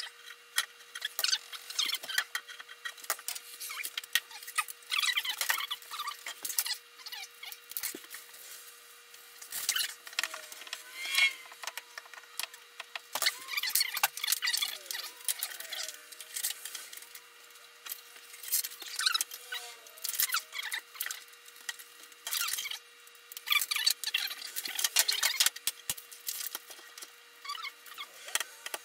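Irregular scratching, rubbing and clicking from wood veneer edge banding being worked with a household iron to melt its hot-melt glue down, over a steady faint hum.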